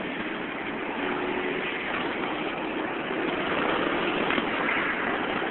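Steady road traffic noise on a busy, congested street: vehicle engines running with a constant low hum, without a single standout event.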